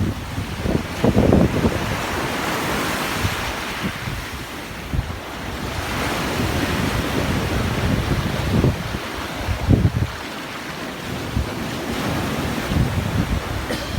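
Heavy storm surf: waves surging and washing in repeatedly, with strong gusts of wind buffeting the microphone.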